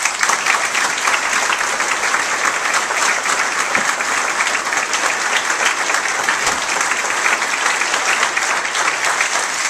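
Audience applauding a performer as she is called to the stage, starting suddenly and dying away at the end.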